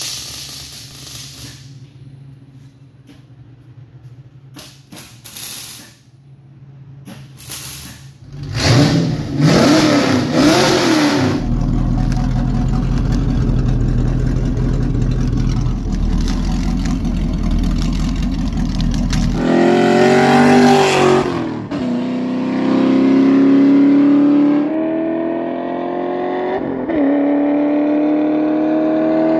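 A straight-piped 5.0L V8 with an X-pipe, no mufflers and side-exit dumps, loud and unmuffled. After a quieter stretch of clicks and knocks, the engine comes in about a third of the way through, idles steadily and is revved. It then pulls away, rising in pitch through two or three gear changes.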